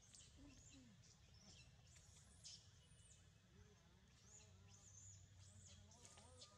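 Faint bird chirps among the trees: short, high calls that sweep downward, repeated every second or so, over a low background hum.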